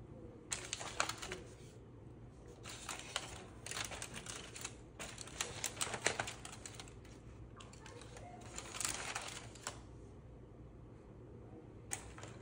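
Aluminium foil crinkling as a spatula scrapes and taps inside an opened foil packet, in several short bursts of rustling and clicking.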